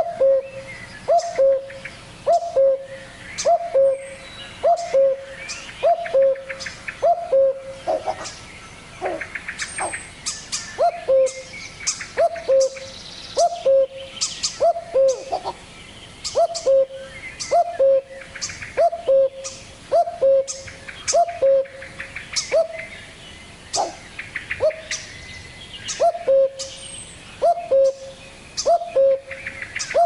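Common cuckoo calling its two-note "cuck-oo", the second note lower, repeated about once a second in long runs with a few short pauses. Other songbirds chirp and trill faintly in the background.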